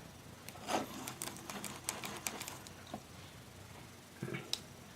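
Light, scattered clicks and taps of small tools and parts being handled at a soldering bench, most of them in the first three seconds, with a couple more near the end.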